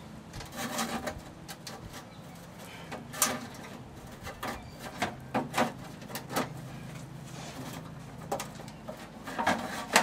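Irregular clicks, knocks and short scrapes of a switchboard cover panel being handled and fitted back into place by hand.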